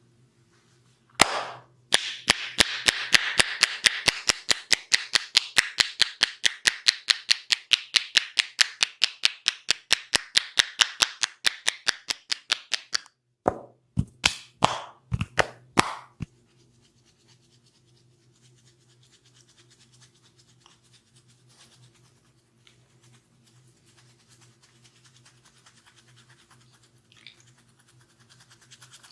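Percussive massage strokes, hands slapping and clapping on bare skin: a fast, even run of sharp claps, about four or five a second for some eleven seconds, then a handful of slower, fuller slaps.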